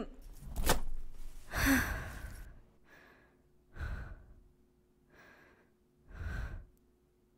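A woman straining and breathing hard: a sharp intake of breath, then a loud strained exhale with a short grunt, followed by four quieter, spaced-out puffs of breath. These are acted effort noises of someone trying to haul herself up off the floor.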